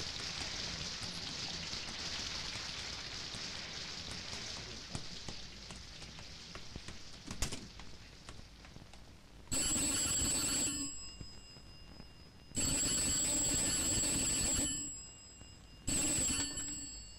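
Rotary desk telephone's bell ringing three times, the last ring cut short as the handset is lifted. The rings follow a steady rushing hiss that fades away over the first eight seconds or so.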